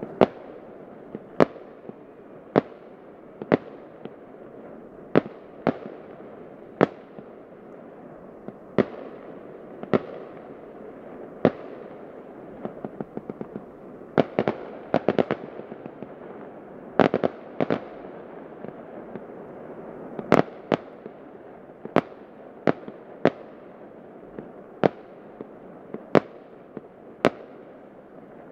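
Distant fireworks display: sharp shell bursts about once a second, each trailing off in a short echo, with quick clusters of reports around the middle, over a steady background noise.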